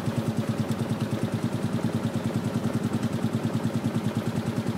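ATV engine idling steadily with an even, quick pulse.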